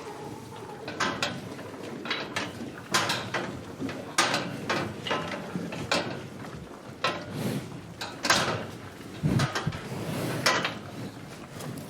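Cows eating grass: irregular crunching and tearing bites and chewing, several in quick runs with short pauses between.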